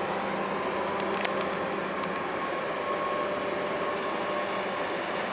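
Steady machinery hum from a passing container ship, its engine and ventilation giving a few faint steady tones over the noise. A few brief high ticks come about a second in.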